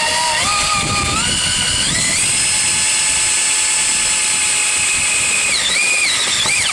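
Power drill driving a self-tapping screw into galvanized steel. The motor's whine climbs in steps over the first two seconds, holds steady, dips and wavers near the end, then cuts off.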